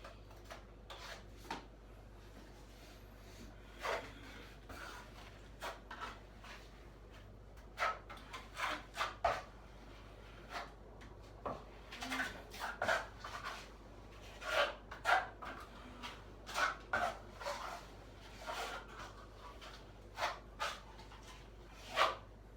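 A filling knife scraping joint filler over the ceiling cracks in many short, irregular strokes, a few louder than the rest.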